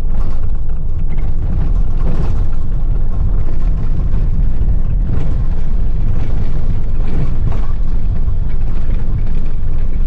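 Road noise inside a vehicle driving over a rough, potholed dirt road: a loud, steady low rumble with irregular knocks and rattles as it jolts over the bumps.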